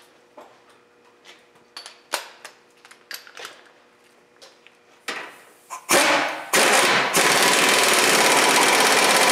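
Scattered clicks and knocks of tools on metal. About six seconds in, a pneumatic impact wrench (air gun) hammers in a few short bursts and then runs steadily, tightening the front strut's mounting bolts.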